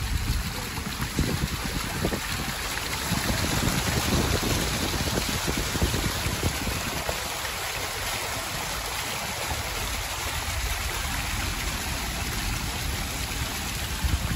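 Floodwater rushing and splashing in a steady noisy wash, with heavier low splashing in the first half that eases about seven seconds in.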